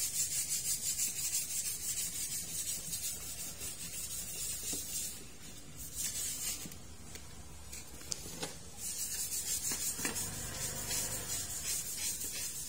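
Rapid, light rubbing and scratching as fingers work an insulating sleeve over a freshly soldered wire joint in an air fryer's base. The scratching pauses for a few seconds in the middle, over a faint low hum.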